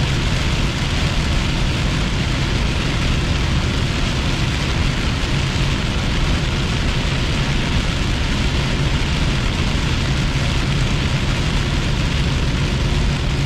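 Heavy rain hitting a car's windshield and roof while driving at highway speed, heard from inside the cabin, over steady tyre and road noise and the low drone of the engine.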